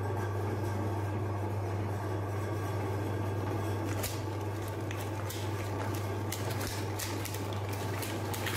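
Electric meat grinder's motor running with a steady hum. From about four seconds in, crackling crunches come through as colour-coated wafer ice cream cones are crushed by the auger.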